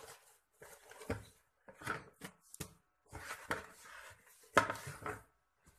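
Irregular soft knocks and scuffing as risen bread dough is taken out and set down on a flour-dusted marble worktop, the loudest knock about four and a half seconds in.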